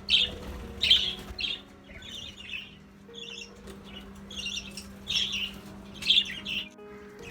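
Flock of pet budgerigars and lovebirds calling in an aviary: a run of short chirps, several a second, overlapping one another.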